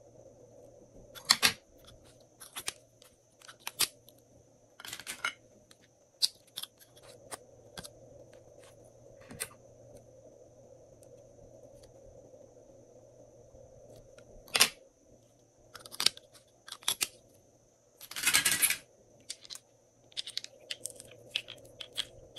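Small scissors snipping pieces off stick lipsticks, among scattered clicks of plastic lipstick tubes and caps being handled. The loudest and longest sound, a noisy scrape of about half a second, comes about eighteen seconds in; a faint steady hum lies beneath.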